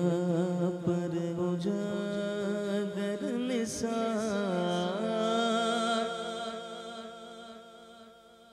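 A man sings a long, wordless melismatic passage of an Urdu manqabat (devotional song), with wavering and gliding held notes over a steady drone. Over the last two seconds or so the sound fades away.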